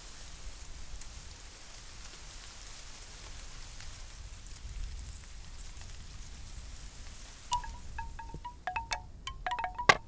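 A steady soft hiss. About three-quarters of the way in, a bamboo wind chime starts clacking: irregular short knocks, each with a brief pitched ring.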